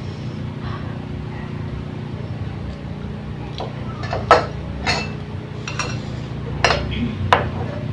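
Chopsticks and dishes clinking: about five short, sharp clicks in the second half, the first the loudest, over a steady low hum.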